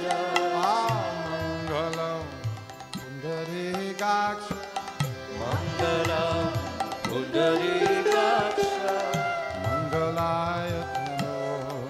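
Live kirtan: voices singing a devotional chant over a harmonium's held chords, with strokes on a double-headed barrel drum (mridanga) keeping the rhythm.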